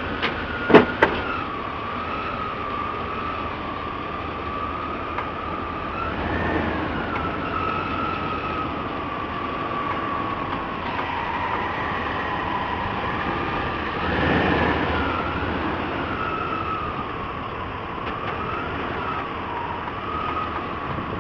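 A truck engine running at idle with a steady, slightly wavering high whine over it, swelling briefly twice; two sharp knocks about a second in.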